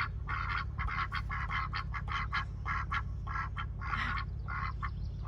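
Ducks quacking in rapid, irregular bursts of several calls a second, over a steady low hum.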